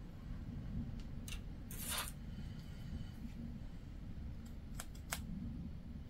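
Scissors being handled on a fabric-covered craft table: a short rustle about two seconds in, then two sharp clicks of the blades near the end as the large fabric shears are opened.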